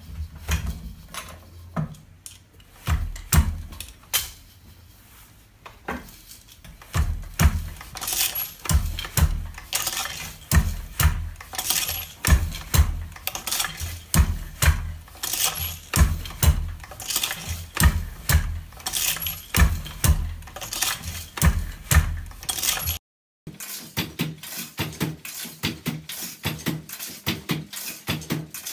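Wooden takabata (Japanese high treadle loom) being woven on by hand: a steady rhythm of wooden clacks and knocks as the shuttle is thrown and the beater is pulled against the cloth, with low thuds from the treadles and frame. Sparser and quieter at first, then regular strokes.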